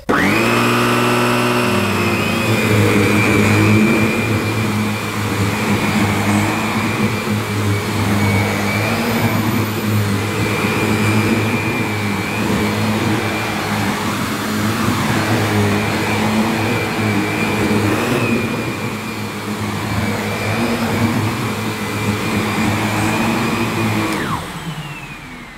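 Sebo Felix Vogue bagged upright vacuum cleaner with a 700-watt suction motor, running on a rug at suction setting 3. It is switched on at the start with a rising whine as the motor spins up, then runs with a steady high whine and low hum that swell and ease every few seconds as it is pushed back and forth. About 24 seconds in it is switched off and the whine falls away.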